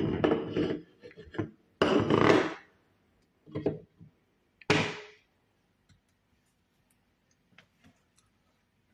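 Ingredients and kitchen items handled at a blender jar on a counter: four short clattering knocks in the first five seconds, then only faint scattered ticks.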